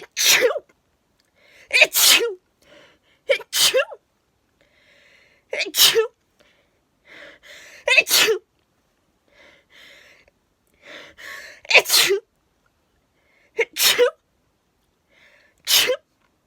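A woman sneezing repeatedly in an induced sneezing fit: eight loud sneezes about two seconds apart, each preceded by a quieter catching in-breath.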